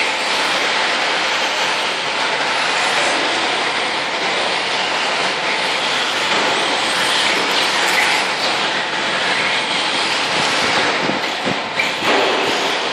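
Electric 1/10 radio-controlled short course trucks running laps on a dirt track: a steady whir of motors and drivetrains with tyre noise, and a few sharp clicks near the end.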